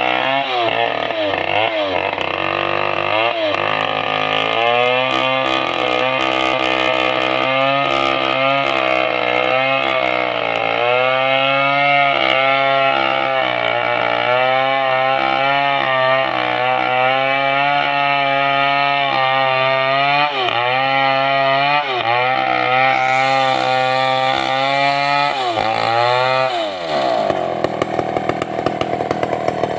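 Stihl 070 two-stroke chainsaw ripping lengthwise through a red sengon log, its engine pitch dipping and recovering under load every second or two. About 27 s in, the engine falls off to a lower, steadier running.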